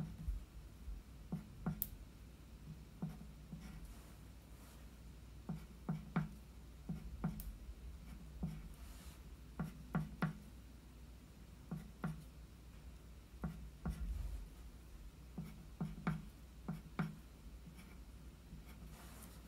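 Writing by hand on paper laid on a wooden table: short, separate strokes and taps of the pen tip as small Chinese characters are written, coming in irregular clusters of a few strokes with brief pauses between.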